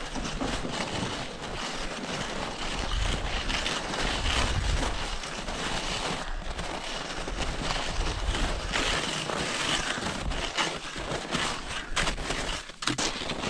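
Wind buffeting the microphone in gusts, over a steady swishing and crunching of skis moving through snow.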